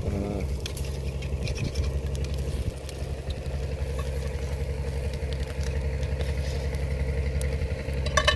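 An engine idling steadily with an even low hum, with a few faint clinks as meat is pushed off metal skewers into a pot.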